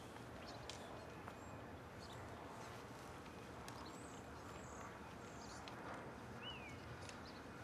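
Quiet outdoor ambience: a steady low background hum with faint, brief bird chirps high above it, including one rising-and-falling chirp near the end, and a few soft clicks.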